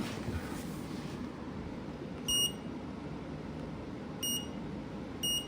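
EG4 mini split indoor unit beeping three times, short single beeps about two seconds and then one second apart, each the acknowledgement of a remote-control button press. A steady low air noise runs underneath.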